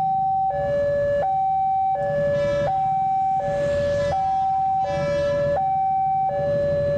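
Railway level-crossing electronic warning alarm sounding a two-tone call, a higher and a lower tone alternating about every 0.7 seconds. It is the signal that a train is approaching the crossing.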